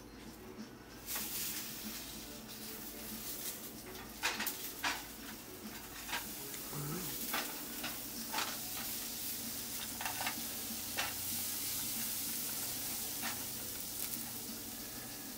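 Sausages and shredded hash-brown potatoes sizzling in a frying pan, starting about a second in. A spatula scrapes and taps against the pan every second or two.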